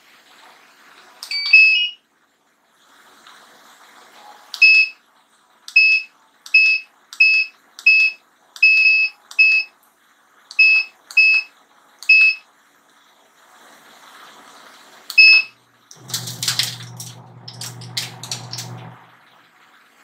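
Washing machine universal control board's buzzer: a short rising power-on chirp, then about a dozen short beeps of one pitch as the panel buttons are pressed. Near the end the machine gives a low hum with a rushing noise for about three seconds.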